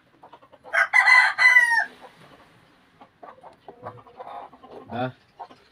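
A rooster crowing once, a call of about a second that ends in a falling note. Then light clicks and taps of small parts being handled on the bench.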